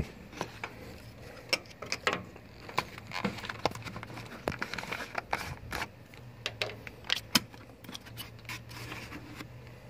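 Light, irregular clicks and taps of a small plastic funnel being handled and fitted into a radiator filler neck, over a faint steady low hum.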